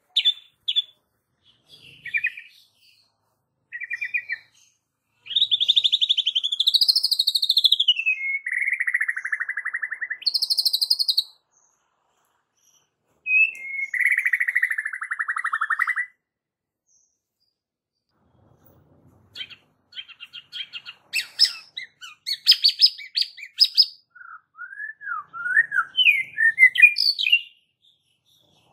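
White-rumped shama singing: a few short notes, then long whistled phrases that glide up and down, separated by pauses. Near the end comes a fast run of rapid chattering notes.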